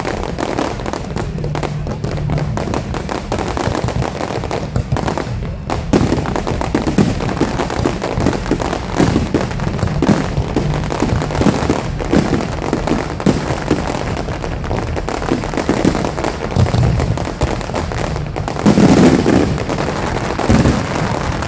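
Fireworks display: a continuous run of bangs and crackling, growing denser about a quarter of the way in, with a louder volley of bangs near the end.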